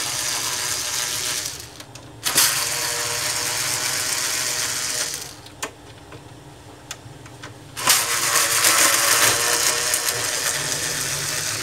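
Mechanical whirring and rattling in three runs of a few seconds each, with single clicks in the quieter gaps between.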